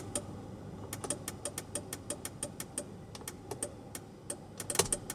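Turn-signal indicator of a 2005 Mercedes-Benz E-Class ticking steadily in the cabin, a rapid, even run of clicks while the indicator is switched on. A few louder handling knocks come near the end.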